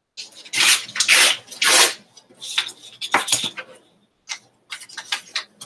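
Paper collage scraps rustling and crinkling as they are handled, in three irregular bursts of crackling noise.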